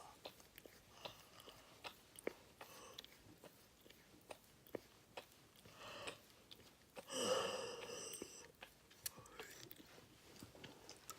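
A person's quiet breathing, with small mouth and nose clicks and one longer, louder breathy gasp about seven seconds in, as they work up to a sneeze.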